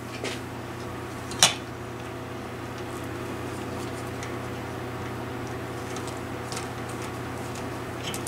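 Wire cutters snipping the ends off the electrical wires: one sharp snip about a second and a half in. A few fainter clicks of wires and tools being handled sound over a steady low hum.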